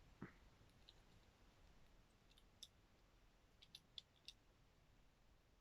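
Faint, sparse clicks of plastic toy joints being moved on a Transformers Studio Series Dino figure as it is transformed: one just after the start, one in the middle, and a quick cluster of three near the end.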